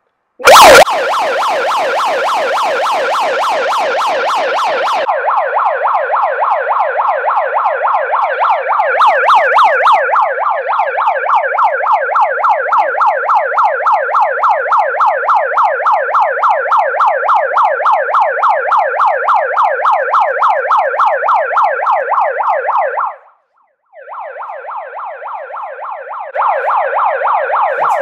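Pyle PMP30 handheld megaphone's built-in electronic siren, switched on with a loud pop about half a second in and sounding as a loud, rapidly warbling wail. It cuts out briefly near the end, restarts quieter, then comes back at full volume.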